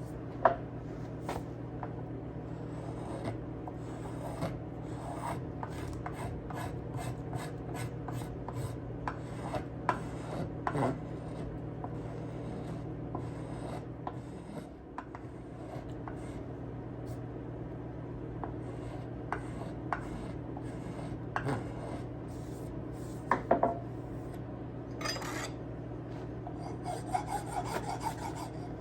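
Wood being rasped or scraped with a hand tool in irregular strokes, with sharper clicks now and then, over a steady low hum.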